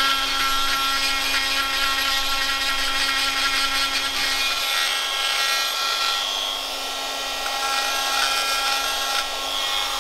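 Straight electric die grinder with a rotary burr running at high speed as it grinds into black marble: a steady high whine over the rasp of the bit on stone, shifting slightly in pitch a couple of times.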